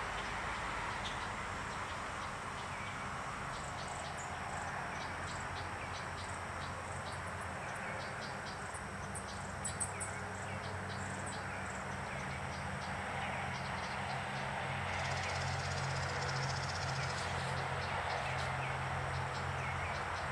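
Outdoor ambience: a steady background hush with many short, high chirps scattered through it, and a low machine hum that grows louder about three-quarters of the way in.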